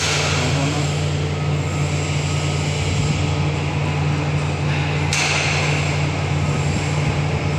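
Steady drone of running machinery: a low hum under a broad hiss. The hiss grows louder about five seconds in.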